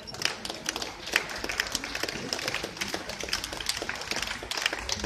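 Audience applauding: many hands clapping together, dying away just after the end.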